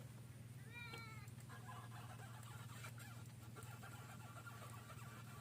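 A faint steady low hum with a short pitched animal call about a second in, followed by faint, fainter tones.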